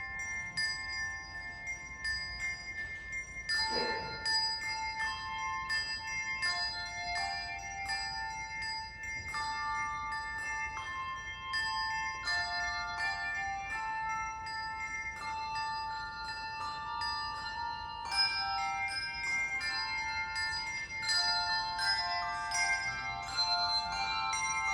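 Handbell choir playing: many handbells struck in chords and melody notes, their tones ringing on and overlapping.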